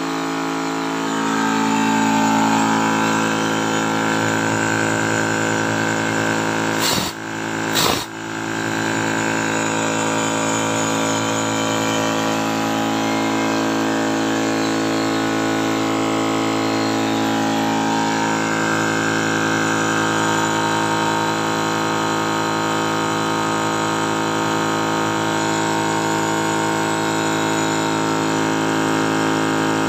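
Water-cooled Yong Heng high-pressure electric PCP air compressor running steadily while filling an airgun: a constant mechanical hum. Two sharp clicks a second apart come about a quarter of the way in.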